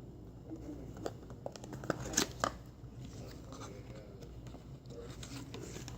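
Handling of small plastic bottles as a food-colouring bottle is readied over a bottle of water: a cluster of light clicks and taps in the first half, then quieter fumbling.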